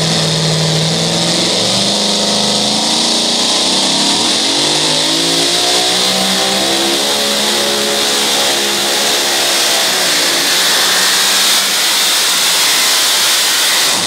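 Supercharged engine of a two-wheel-drive Chevrolet pulling truck running at full throttle under load as it drags the pulling sled. The engine note climbs between about four and six seconds in, then holds high and loud.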